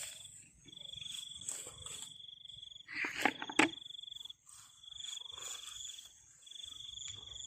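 Night insects trilling: a steady high trill broken into long stretches, with a fainter pulsing chirp above it. About three seconds in, a short burst of noise with a couple of sharp clicks.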